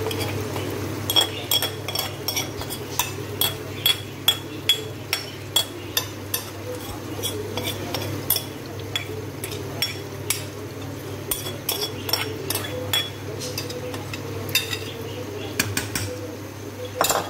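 A metal spoon clinking and scraping against a glass bowl as a thick spiced yogurt mixture is scraped out into a cooking pan: repeated sharp clinks, two or three a second, each with a brief high ring. Near the end, spoons stirring in the wok.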